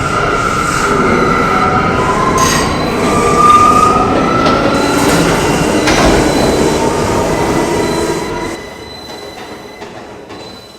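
R179 subway train running, heard from inside the car: wheel rumble with high-pitched wheel squeal, one tone gliding slightly upward partway through. The sound drops off sharply about eight and a half seconds in.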